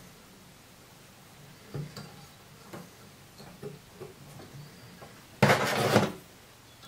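Light clicks and handling noises of fly-tying materials being worked at a vise, then a loud rustle lasting under a second near the end.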